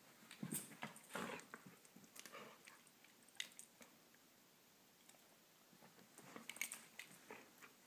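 Dog chewing and crunching small bits of food picked off the carpet, in short spells of crackly bites with pauses between.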